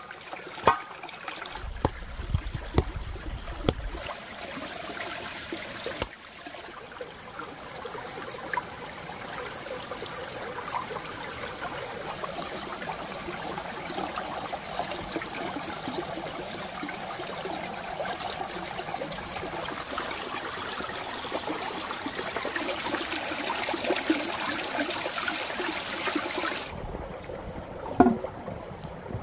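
Shallow stream trickling and gurgling over stones, with a few sharp knocks and clinks of cookware being handled.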